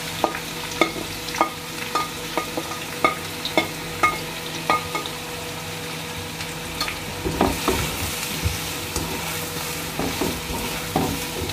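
Sliced onions frying in a little hot mustard oil in a wok: a steady sizzle with sharp pops about twice a second over the first few seconds, then a slotted spatula stirring and scraping through the onions from about the middle on.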